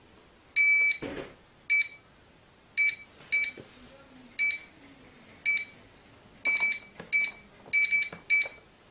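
Wireless alarm control panel's keypad beeping as its keys are pressed to enter a code: about eleven short, high beeps at uneven spacing, some in quick pairs. There is a soft knock about a second in.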